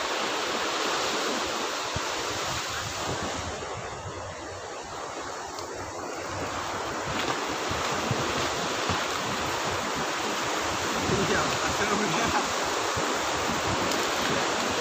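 Sea surf breaking and washing up the sand in a steady rushing hiss, with wind rumble on the microphone. The hiss eases for a few seconds about four seconds in, then builds again.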